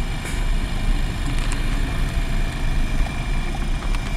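Car driving on a gravel road, heard from inside the cabin: a steady low rumble of tyres on gravel and engine, with a few light ticks.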